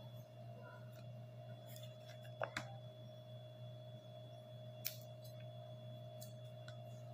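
A small kitchen knife cutting the tips off okra pods by hand: a few short clicks, two close together about two and a half seconds in and one near five seconds. A steady hum runs underneath.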